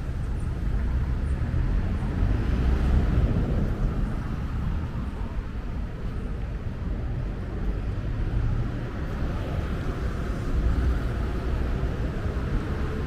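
City street traffic: a steady rumble of passing cars, swelling a few times as vehicles go by.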